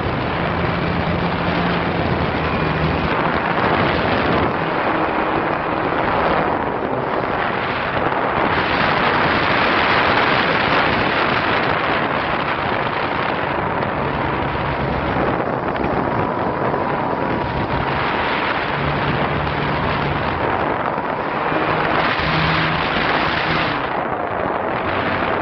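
Airflow rushing over an onboard camera's microphone on an RC model plane in flight, swelling and easing as the plane manoeuvres, with the plane's engine faintly audible as a steady tone underneath.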